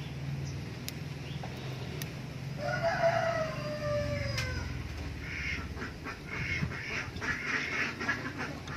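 A rooster crows once about two and a half seconds in, a long call that falls in pitch at its end. It is followed by a rapid run of short bird calls, over a steady low hum.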